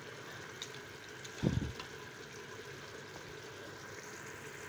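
Beef pieces browning in hot oil in an aluminium pressure cooker, a steady faint sizzle, with one dull knock about one and a half seconds in.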